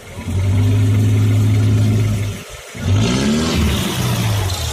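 Daihatsu Taft 4x4's diesel engine revving: held at steady high revs for about two seconds, dropping off briefly, then revved up and down again.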